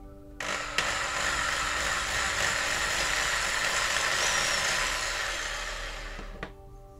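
Green Bosch hand drill running under load as its bit bores into the metal bottom plate of a diecast toy car, drilling out the rivet to take the car apart. It starts about half a second in, runs steadily, then eases off and stops near the end.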